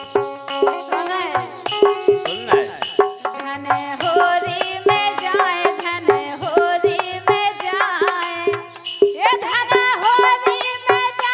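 Bundeli folk music: held pitched notes under a melody that slides and bends in pitch, with sharp percussion strokes keeping a steady beat about twice a second.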